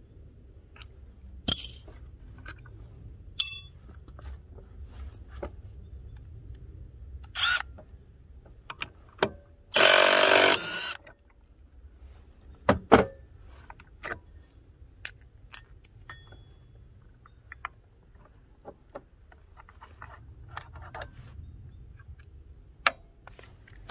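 Metal tools and scooter variator parts clinking and knocking as the pulley is taken apart, with a few brief ringing clinks of steel on steel. About ten seconds in there is a harsher rasp lasting about a second.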